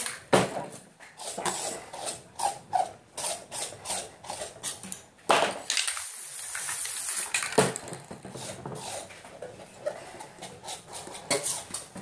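Repeated short scraping strokes of a card edge through wet spray paint, scratching in tree trunks, with a brief spray-can hiss about five seconds in.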